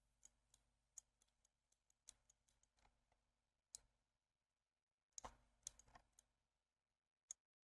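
Faint, scattered clicks of a computer mouse and keyboard, about a dozen in all, with a small cluster a little past five seconds in.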